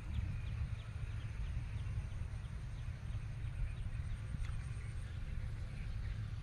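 Outdoor ambience: a steady low rumble of wind on the microphone, with a faint run of small ticks about three a second in the first half and a faint high insect trill a little after the middle.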